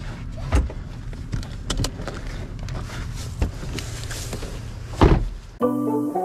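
A vehicle engine idling with a steady low rumble, with scattered knocks and clicks close by. About five and a half seconds in, it cuts off suddenly and guitar music starts.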